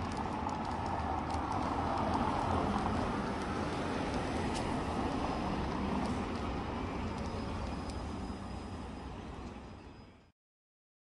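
Town street ambience: a steady hum of road traffic with a few faint clicks, fading out and cutting to silence near the end.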